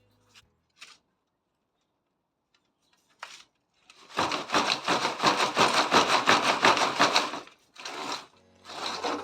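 A loud run of rapid, rough scraping strokes lasting about three seconds, beginning about four seconds in, with two shorter bursts of the same near the end.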